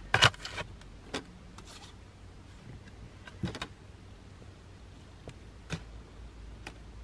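Glossy photo postcards handled and shuffled by hand: a few short rustles and clicks of card against card, the loudest just after the start, over a faint low hum.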